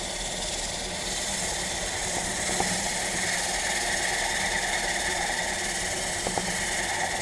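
A wood lathe motor runs steadily while sandpaper on a foam block rubs against a spinning pine blank, giving a steady hiss over the motor hum. There are a few light clicks.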